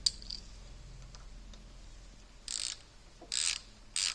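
A small hand-worked mechanism: one sharp click, then three short ratchet-like rasps about half a second apart near the end.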